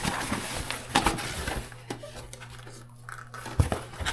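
Rustling of a package being handled and opened by hand, followed by a few sharp knocks and clinks as the contents are moved.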